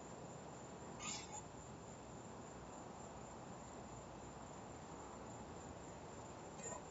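Faint steady hiss of a Ring doorbell camera's microphone picking up outdoor ambience, with a brief faint high sound about a second in and another near the end.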